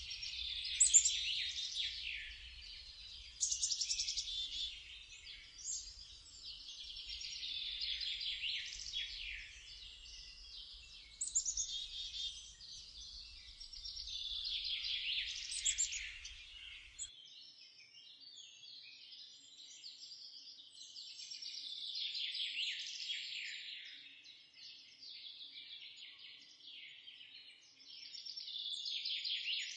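Songbirds singing and chirping in overlapping warbled phrases that swell and fade every few seconds, with a faint low rumble underneath that stops about halfway through.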